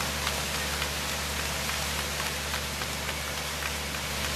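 A tour boat under way: a steady low engine drone beneath a loud, even hiss of rushing water and wind, with scattered small crackles.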